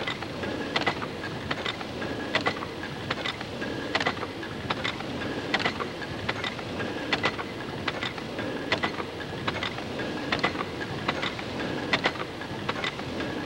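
A large steam pumping engine running steadily, with a continuous rumble and hiss under regular sharp clicks a little more than once a second, keeping time with its strokes.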